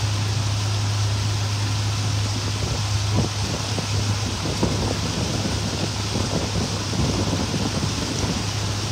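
Boat engine running at a steady cruise: a constant low drone under an even rush of wind and water.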